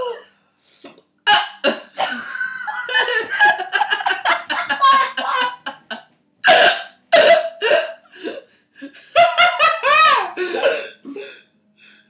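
A man with hiccups laughing in fits, with a few short, sharp hiccups standing out among the laughter, about a second in and again between six and seven seconds in.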